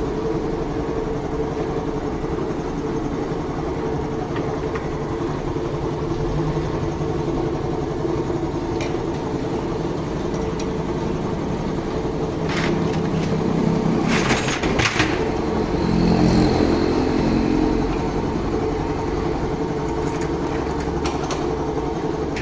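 Honda CD70's small single-cylinder four-stroke engine running steadily, with a few sharp metallic clicks and a slightly louder stretch a little past the middle.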